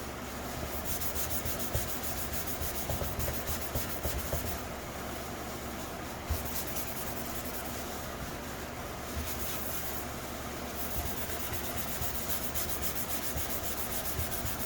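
Hand sanding of clear coat on a helmet with fine, about 800-grit abrasive: a steady scratchy rubbing of quick back-and-forth strokes. The scratching eases off briefly about four and a half seconds in and again about ten seconds in.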